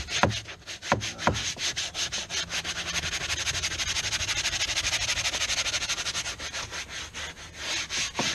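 Hand scrub brush scrubbing a boat's interior in rapid back-and-forth strokes, with a few short falling squeaks near the start.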